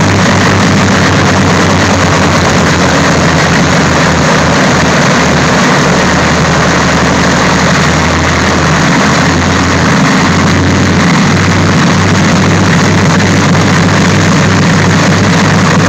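A Boeing B-29 Superfortress's Wright R-3350 radial piston engines running on the ground, a loud steady drone with a low throb that pulses unevenly.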